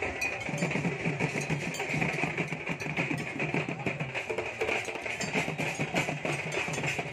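Procession band playing: barrel drums beaten in a steady rhythm, with clinking metal percussion like a bell or cymbals.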